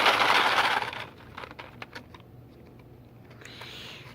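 A short rustle, then a few light clicks and taps: the BeanBoozled jelly bean box being handled while the next bean is picked out.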